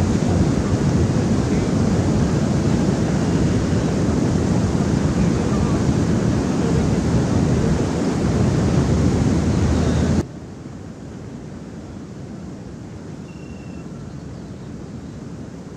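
Steady rush of water pouring over a low dam's weir, mixed with wind on the microphone. About ten seconds in it drops abruptly to a quieter, steadier rush.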